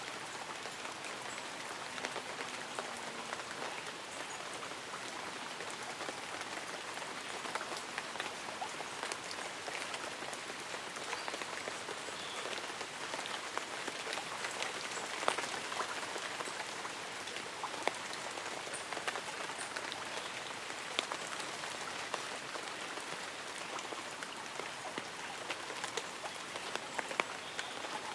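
Light rain falling on tree leaves and an umbrella: a steady hiss with many scattered sharper drop ticks.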